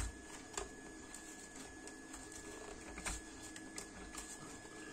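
Faint scraping and a few small clicks of a blade cutting open a box's packaging, the clicks scattered and sparse.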